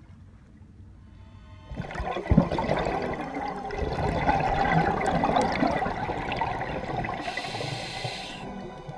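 Water rushing and bubbling heard underwater, starting suddenly about two seconds in with a thump and fading near the end, over background music.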